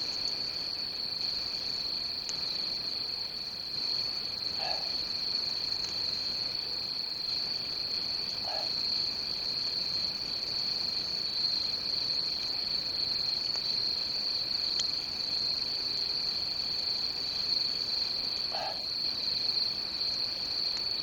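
Steady chorus of crickets: a continuous high trill with a weaker, lower trill beneath it. A few faint short sounds stand out, about 5, 9 and 19 seconds in.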